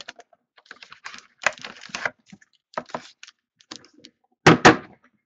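Foil trading-card packs being handled, with scattered small clicks and rustles, then two louder knocks close together near the end.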